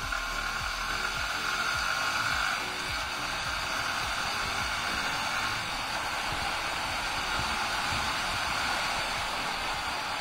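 Steady rush of wind over the microphone of a motorcycle-mounted camera as a Yamaha R15 V3 accelerates along the highway; the wind drowns out the engine.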